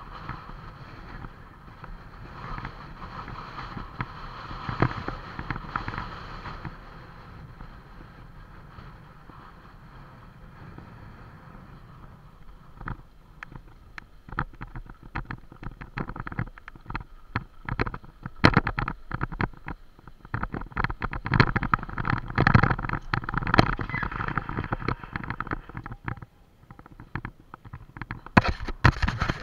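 Bicycle ridden fast over a rough dirt trail, with wind rushing over the mounted camera's microphone and a steady stream of knocks and rattles as the wheels hit bumps. The knocking grows denser and louder about halfway through, and the sound changes abruptly near the end.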